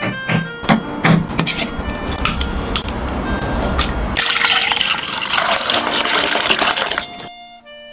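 A knife cutting through tofu onto a wooden chopping board, with a few sharp knocks. From about four seconds in, a stream of water is poured into a saucepan of seaweed and tofu: a steady splashing pour that stops suddenly about three seconds later. Background music plays throughout.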